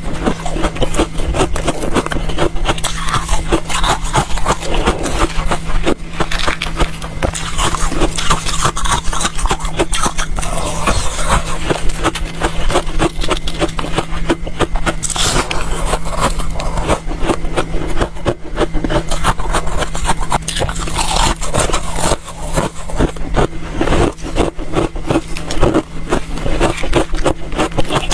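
Close-up crunching and chewing of freezer frost: a dense, continuous run of crisp crunches and crackles, over a steady low hum.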